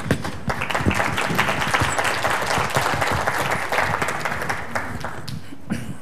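Audience applauding. The clapping starts all at once, holds steady and dies away about five seconds in.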